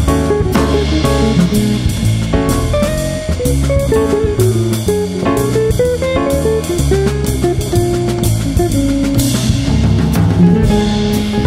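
Instrumental jazz from a small combo: an archtop electric guitar plays a moving melody line over double bass and drums.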